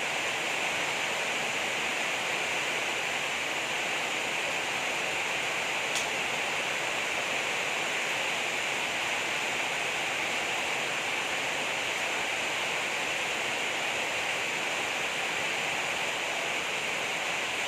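Steady, even rain with one brief tick about six seconds in.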